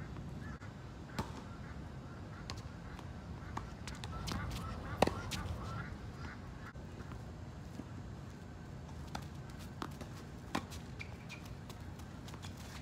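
Tennis rally on a hard court: a series of sharp, irregular pops from the ball being struck by rackets and bouncing, the loudest about five seconds in from the near player's racket.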